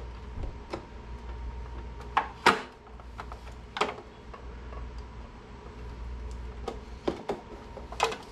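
Scattered clicks and knocks of a plastic motorcycle lower leg fairing being handled and pressed into place on its mount, the loudest knock about two and a half seconds in, over a low steady hum.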